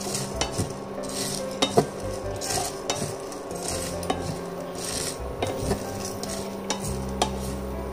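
Spatula stirring and scraping peppercorns, dal and garlic cloves as they sauté in a non-stick frying pan, with repeated clicks of the spatula and spices against the pan and some sizzling. A steady hum runs underneath.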